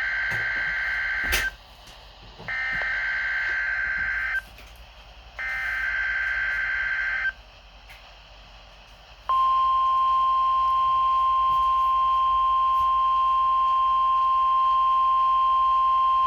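NOAA Weather Radio Specific Area Message Encoding (SAME) header: three bursts of warbling two-pitch digital data about two seconds each, a second apart. About nine seconds in comes the steady single-pitch 1050 Hz weather radio alert tone, held loud, sounded as part of a required weekly test.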